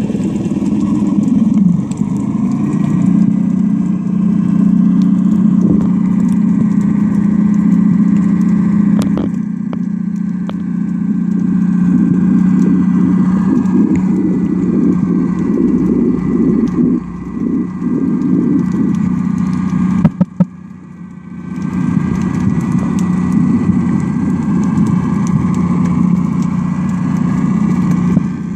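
A steady, engine-like mechanical hum heard through the water on an underwater phone recording, with crackling over it. It drops away briefly about twenty seconds in, then returns.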